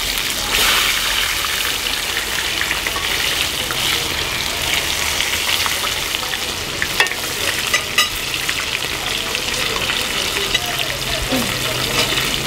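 Food frying in hot oil: a steady crackling sizzle, with two sharp knocks a little past halfway.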